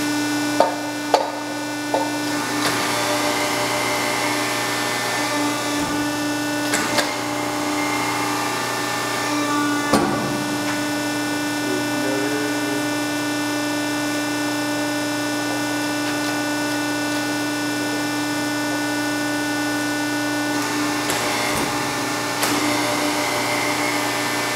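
Diacro 75-ton hydra-mechanical press brake running, its motor giving a steady hum with a whine of overtones. A few sharp clicks and knocks come in the first ten seconds.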